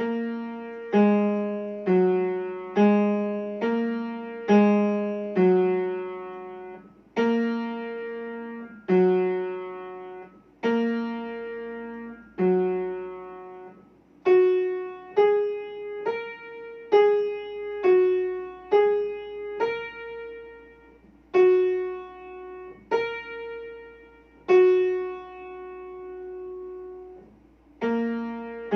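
Piano playing a simple beginner's piece: two-note chords struck at an even pace, some held longer, each ringing and fading before the next.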